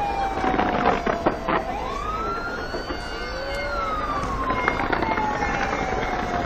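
An emergency vehicle's siren wailing. Its pitch slides down, swoops up sharply about a second and a half in, then falls slowly again. Sharp pops and crackles from the fireworks display sound over it in the first second and a half.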